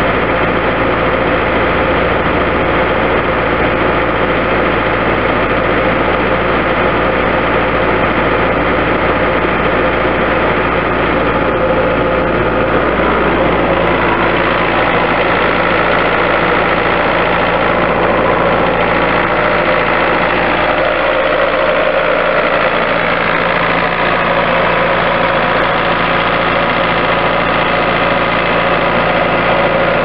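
Diesel engine of a 2005 Bobcat S185 skid steer loader idling steadily.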